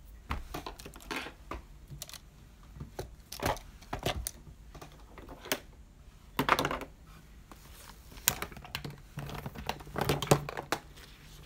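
Plastic makeup containers and packaging clicking and clattering irregularly as they are rummaged through by hand in a search for a mascara tube, with a denser burst of knocks about halfway through and another near the end.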